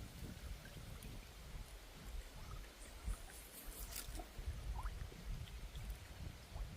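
Faint outdoor waterside ambience: flowing water with an uneven low rumble and a few faint short chirps.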